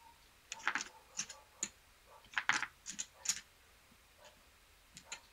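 Casino chips clicking against one another in several quick clusters of clacks as they are stacked and set down to pay a winning blackjack bet.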